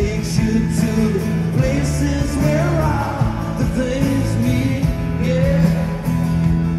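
Live rock band playing through an arena PA: electric guitars, bass and drums with a singing voice, heard from the audience seats with the hall's reverberation.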